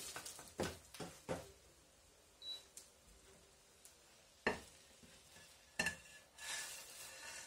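Wooden spatula knocking against a nonstick frying pan as a fried tostada is lifted out, a handful of separate light knocks, then a scraping near the end.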